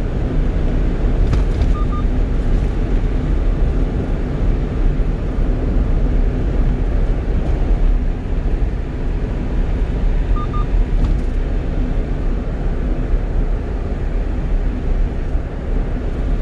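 Steady engine and road drone of a one-ton truck cruising on an expressway, heard from inside the cab. A short double beep sounds about two seconds in and again about ten seconds in.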